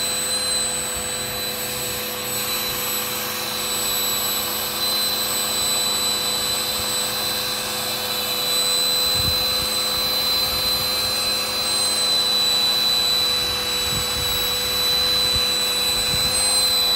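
Electric air pump powered from the car, running steadily with a high whine while inflating a large inflatable camel pool float.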